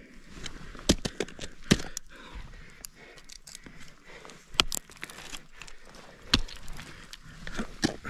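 Ice climbing tools (ice axes and crampon points) striking into ice: a series of sharp, irregularly spaced hits, the loudest about five of them, some with a brief ring.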